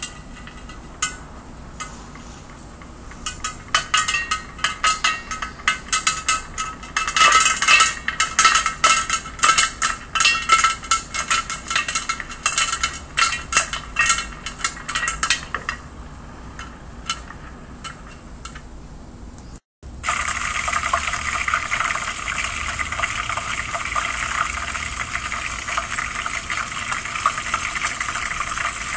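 Popcorn kernels popping in a steel pot: scattered pops that thicken into a dense run of popping, then thin out to a few. After a short cut, a steak sizzles steadily in hot oil in a frying pan.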